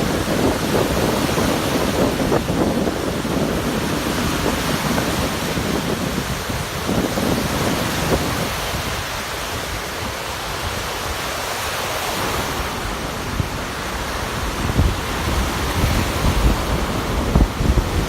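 Rough Lake Erie surf breaking in heavy wind, with the wind buffeting the microphone in gusts. The wind noise rises and falls, easing somewhat in the middle and gusting harder again near the end.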